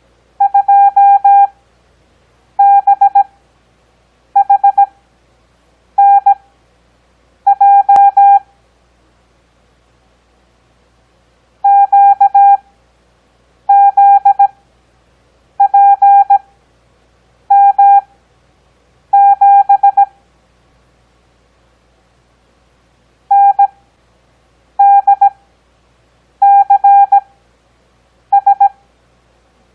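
Morse code practice tone: a steady beep keyed into letters at a 17 words-per-minute character speed, with long Farnsworth gaps between characters for an overall 6 words per minute. About fourteen characters come in three runs, with longer pauses between the words, and there is a faint click about eight seconds in.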